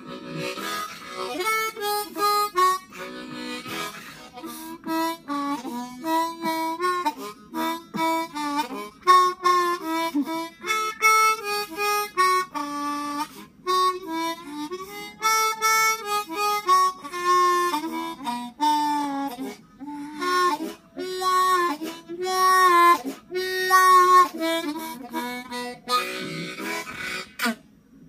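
Harmonica played cupped in both hands: a melody of short, quickly changing notes and chords in phrases with brief breaks between them, stopping right at the end.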